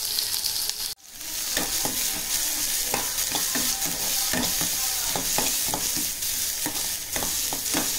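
Chopped onions and dried red chillies frying in sesame oil in a kadai, sizzling steadily while a metal spatula stirs them with repeated scrapes and clicks against the pan. The sound cuts out briefly about a second in.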